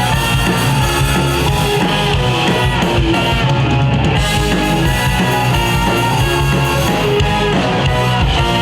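Live rock band playing an instrumental break between sung lines, with guitar and drums.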